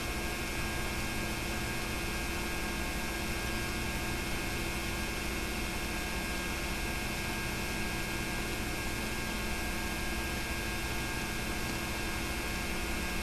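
Steady hiss with a constant electrical hum from the film-to-tape transfer, with no sound of the filmed scene, because the film was shot silent.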